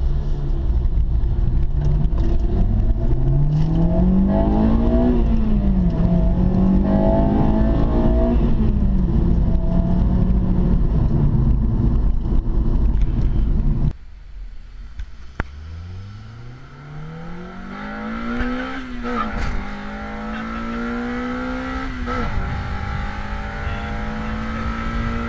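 2006 Acura RSX Type-S four-cylinder with an AEM intake accelerating through the gears, heard from inside the cabin: the revs climb and drop back at each upshift, several times, under heavy low road rumble. After a break about 14 seconds in, a quieter run climbs from low revs through two upshifts and settles to a steady, slowly rising pitch.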